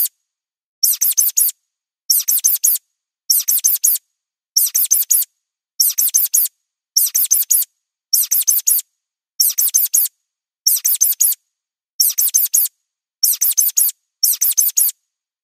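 High-pitched mouse squeaks in short bursts of four or five quick squeaks, repeating evenly about every 1.2 seconds with silence between.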